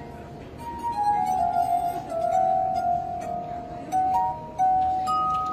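Glass harp: wine glasses tuned with water, sounded by fingers rubbed around their rims, ringing a slow melody of long held pure notes that overlap one another. The notes are soft for the first moment, then new notes come in about every second.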